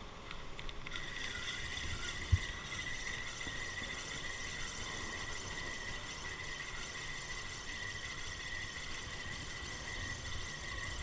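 Ryobi Virtus spinning reel winding in line at an even pace during a lure retrieve, its gears giving a steady, high-pitched whine that starts about a second in. A single sharp knock about two seconds in.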